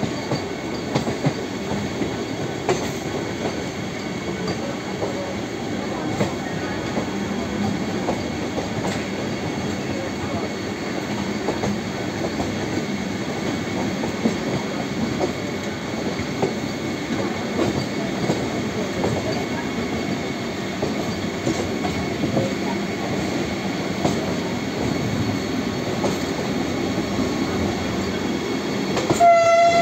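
Trains rolling through station trackwork: a steady rumble of wheels on rails with frequent clicks over joints and points and some wheel squeal. A short horn blast sounds near the end.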